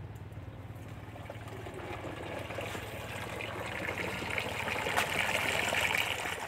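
Milky spray solution poured in a steady stream from a metal pail's spout into a knapsack sprayer's tank, splashing through the strainer basket in the filler opening. The pouring grows louder after the first couple of seconds.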